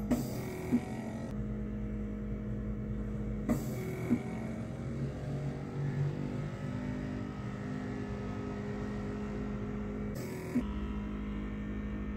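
Instrumental background music with a steady drone, broken by a few sharp clicks that mostly come in pairs.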